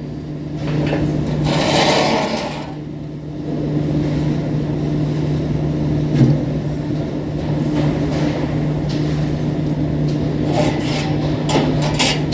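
Arc welding on galvanized iron: a welding machine hums steadily while the arc crackles and hisses in bursts, about a second in and again near the end, with a single knock midway.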